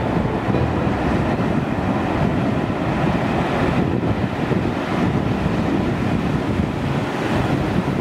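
Ocean surf breaking and washing up a sandy beach in a steady rush, with wind buffeting the microphone in a low rumble.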